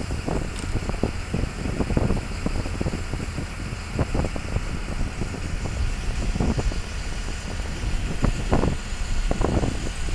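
Wind buffeting the microphone in irregular gusts aboard a moving parasail tow boat, over the steady running of the boat's engine.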